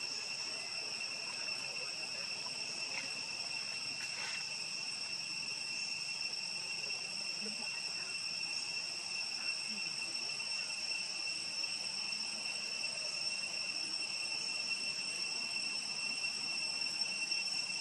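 Steady insect chorus: a continuous high-pitched drone at an even pitch, with a higher tone above it, with no break.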